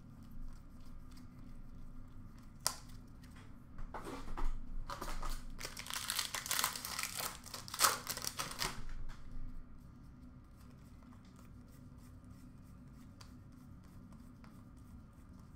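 A 2017-18 Upper Deck Series 1 hockey card pack wrapper being torn open and crinkled. A few sharp clicks come first, then a dense burst of tearing and rustling about five to nine seconds in.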